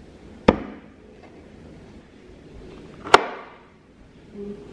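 Two sharp knocks, like a kitchen knife striking a cutting board, about two and a half seconds apart, each with a short ringing tail.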